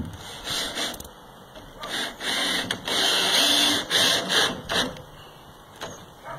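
Framing hammer knocking on a wooden floor joist, with scraping of wood on wood as the joist is worked into line. A few sharp knocks come about four to five seconds in.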